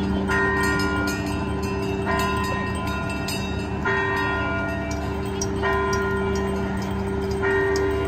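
Fire apparatus air horns blaring in a steady, continuous low tone, with a bell struck about every two seconds over it.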